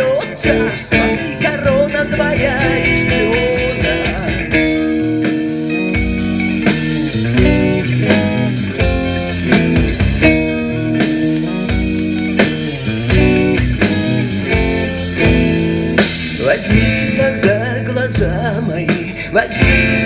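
Alternative rock song playing from a vinyl LP on a turntable, in a passage with no sung words. The music turns fuller and brighter about sixteen seconds in.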